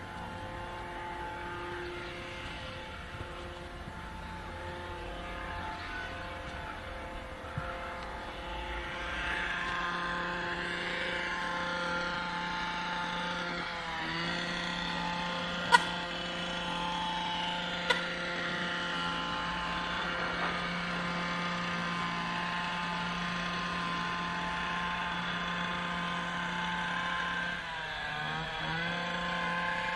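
A steady mechanical hum of several tones held together, like small motors running. It gets louder about a third of the way in and briefly dips in pitch twice. Two sharp clicks come close together around the middle.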